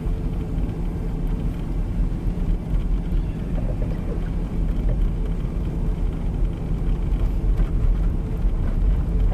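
Steady low rumble of a four-wheel-drive vehicle driving on a snowy road, heard from inside the cabin: engine and tyre noise.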